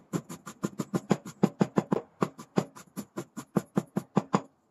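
Chinese cleaver chopping ginger on a wooden cutting board, mincing it with fast, even strokes of about six a second. The chopping stops shortly before the end.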